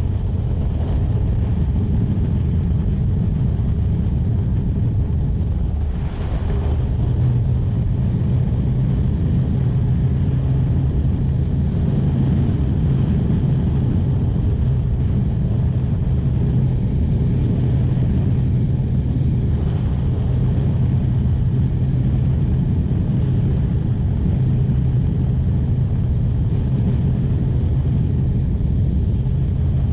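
Honda VF500F Interceptor's 498cc V4 engine running steadily at freeway cruising speed, mixed with a constant rush of wind and road noise. The level dips briefly about six seconds in, after which the engine's steady hum stands out more clearly.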